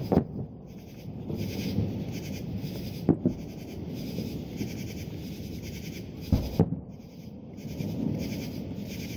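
Aerial fireworks shells bursting: a boom right at the start, another about three seconds in, and two in quick succession around six and a half seconds, over a steady background noise.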